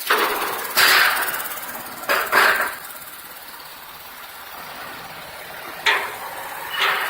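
Automatic box-beam welding machine at work: several short, sudden hissing bursts, each fading within about half a second, over steady machine noise.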